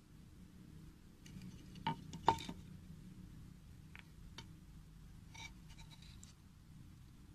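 A few light clinks and knocks of small hard objects being handled, two sharper ones about two seconds in, then fainter ticks, over a low steady hum.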